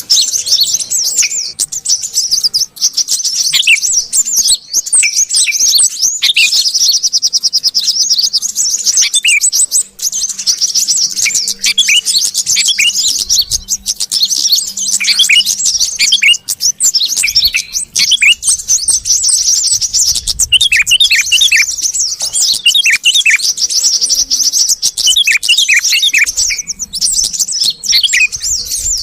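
Bird-lure recording of yellow-vented bulbul and sooty-headed bulbul calls: a dense, continuous mass of high, rapid chirps and twitters, broken by clusters of short falling notes. It is the excited, noisy chatter used to draw small birds in.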